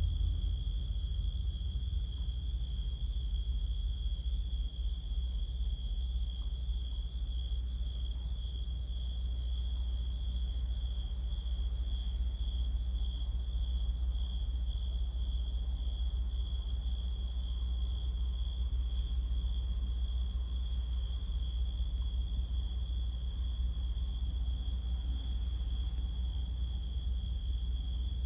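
Crickets calling: a continuous high trill with short chirps repeating every second or two. Under them runs a steady low rumble.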